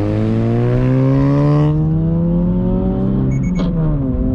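2022 Subaru BRZ's 2.4-litre flat-four engine on its stock exhaust accelerating through a gear, its note climbing steadily. A short beeping comes near the end, the kind the BRZ's display can sound at a set RPM as a shift cue. Then the pitch drops sharply at the upshift and starts climbing again.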